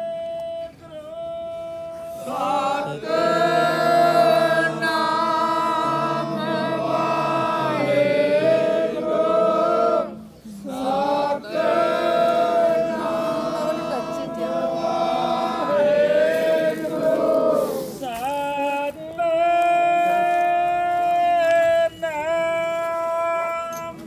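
Sikh devotional hymn singing (Gurbani kirtan): voices sing long, held, wavering notes over a steady accompaniment, with brief breaks about ten seconds in and again near eighteen seconds.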